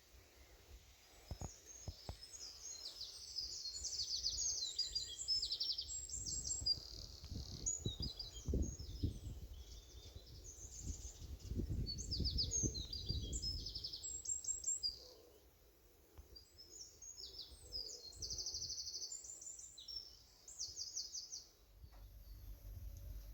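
Woodland songbirds singing, a run of high, rapid trilled phrases one after another. A low rumble sits under the song for a stretch in the first half.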